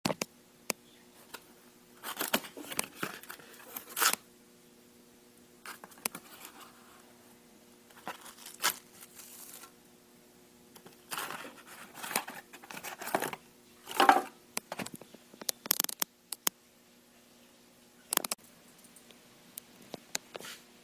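A small cardboard box being opened by hand: card tearing and flaps scraping and rustling in irregular bursts, with a few sharp clicks and knocks, the loudest about two-thirds of the way through. A faint steady hum runs underneath.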